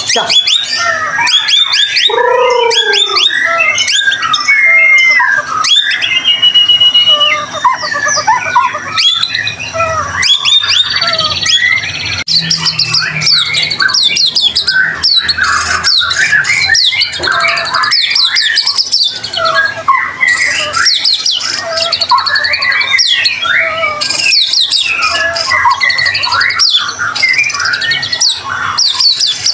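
White-rumped shama (murai batu) singing without pause: a fast, varied stream of loud whistles, trills and harsh chattering notes, packed with mimicked phrases ("isian").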